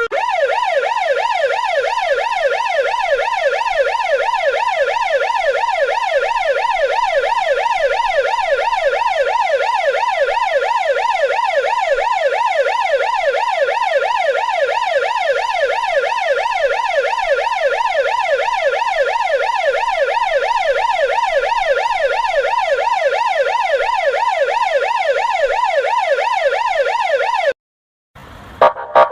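Russian police car electronic siren in a fast yelp, its pitch sweeping rapidly up and down over and over. It cuts off abruptly near the end, and a few short blasts follow after a brief gap.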